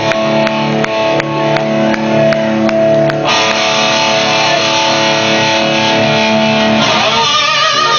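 Electric guitar playing live through an amplifier. A chord rings out over picked notes, then holds fuller, and near the end the notes start to waver with heavy vibrato.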